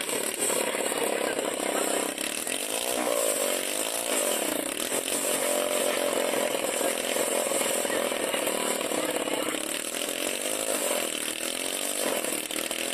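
Small engine of a homemade scrap-built helicopter running and driving its rotor, its pitch wavering up and down as the speed changes.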